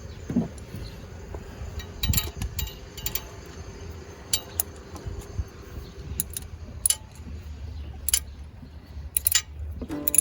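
Scattered, irregular metallic clicks and clinks of hand tools, a spark plug socket and wrench worked in the engine bay while a new spark plug is tightened.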